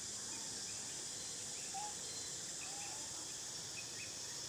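Outdoor ambience of a steady high insect drone, with faint scattered chirps and two short squeaky calls about two and three seconds in.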